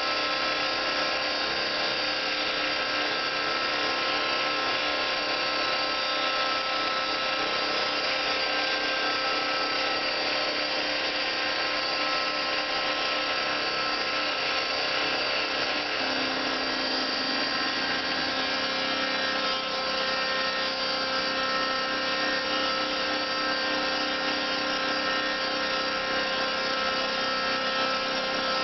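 Homemade CNC mill running, its stepper motors and spindle giving a steady whirring whine with several steady tones. A lower tone shifts about 16 seconds in, as the machine's motion changes.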